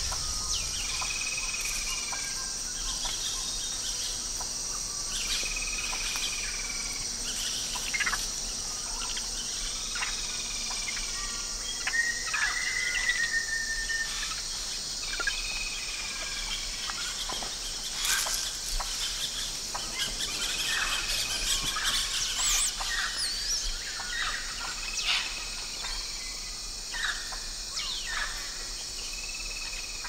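Tropical rainforest ambience: a steady high-pitched insect buzz throughout, with birds giving short, arched whistled calls every few seconds and scattered quick chirps, busiest in the second half.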